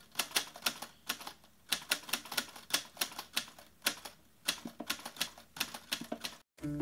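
Typewriter sound effect: keys clacking in quick, irregular runs of strikes with short pauses between, stopping shortly before the end.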